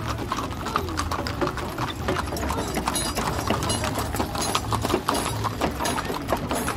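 Hooves of several horses and mules clip-clopping at a walk on an asphalt road, an irregular overlapping patter of hoof strikes over a steady low rumble from a line of horse-drawn carts.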